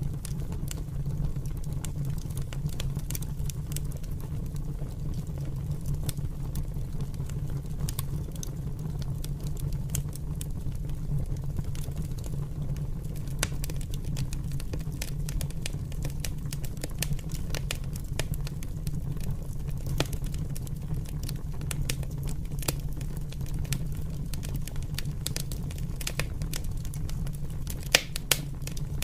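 Open fire crackling, with frequent small irregular pops over a steady low rumble of the flames, and one louder pop near the end.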